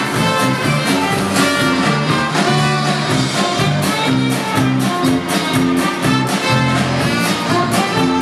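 Upbeat instrumental music with a steady beat and sustained melody notes.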